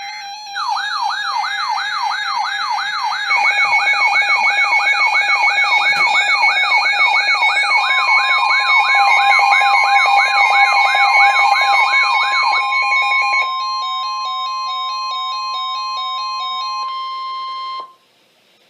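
Several weather alert radios sounding their alarms at once for a Blizzard Warning: a siren-like tone sweeping up and down about two and a half times a second, over stepping two-tone beeps. About eight seconds in, a steady long tone joins, the National Weather Service warning alarm tone. Everything cuts off suddenly near the end.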